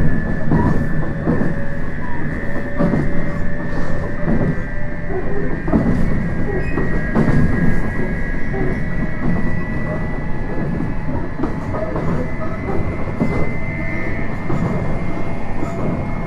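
Onboard running sound of a JR East 719 series electric train at speed, heard inside the car: a steady rumble with irregular knocks from the wheels on the track, under a steady high whine. This is the unit singled out for its unusual running noise.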